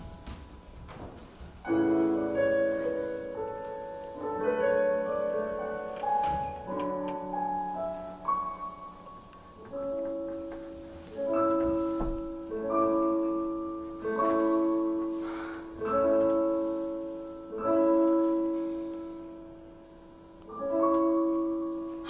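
Slow instrumental music of struck chords on a keyboard or mallet instrument, each chord ringing out and fading before the next, a new one every one to two seconds. A couple of soft low thumps come near the start and about halfway through.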